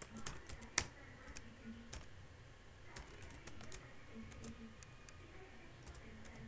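Typing on a computer keyboard: faint, scattered key clicks in short runs, with one louder click just before a second in.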